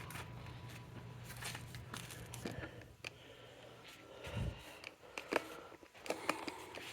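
Faint scattered clicks and knocks of handling, with a low thump about four and a half seconds in and a faint steady hum over the first three seconds.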